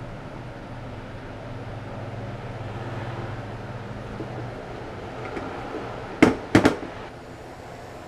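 Tools being handled on a plastic workbench top: three sharp clacks close together about six seconds in, the loudest sounds, over a low steady hum that fades out around the middle.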